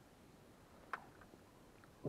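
Near silence with faint background hiss, broken about a second in by one short sharp click, followed by a few faint ticks.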